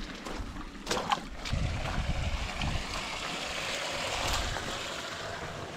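Footsteps on gravel and brush beside a shallow trickling creek, with a few sharp clicks about a second in. Wind rumbles on the microphone for a couple of seconds in the middle.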